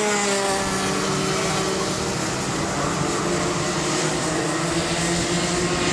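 A pack of Rotax Max Junior 125cc two-stroke single-cylinder kart engines running at racing speed, several engine notes overlapping. Some notes fall slightly in pitch in the first second, then hold steady.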